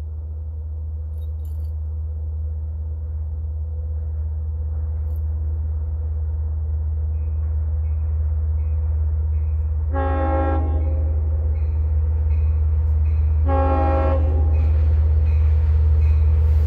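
A diesel commuter train approaching a grade crossing, its low rumble growing steadily louder. Its air horn sounds a long blast about ten seconds in and a shorter one a few seconds later, with another starting at the very end, the grade-crossing horn sequence. Meanwhile the crossing-signal bell dings about twice a second.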